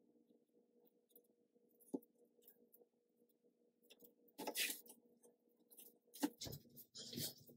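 Scissors snipping the lace of a lace-front wig: a few short, crisp cuts, mostly in the second half, over a faint steady low hum.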